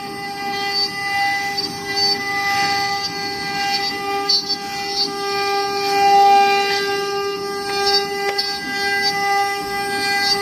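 CNC router spindle whining at a steady pitch while its bit carves a relief into a wood panel, with higher, uneven cutting noise that comes and goes.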